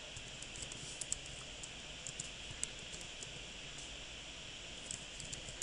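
Computer keyboard keys typed in short, irregular taps, a handful of faint clicks spread across a few seconds over a steady background hiss.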